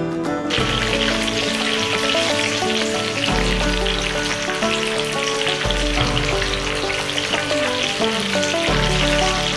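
Slabs of layered potato frying in hot oil in a pan, a steady sizzle that starts suddenly about half a second in, with background music underneath.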